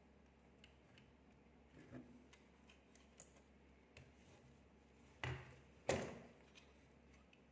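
Light clicks and taps of small hardware parts and tools being handled, with two louder knocks about five and six seconds in.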